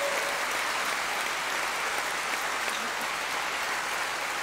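Steady applause from a large audience clapping together, easing slightly toward the end.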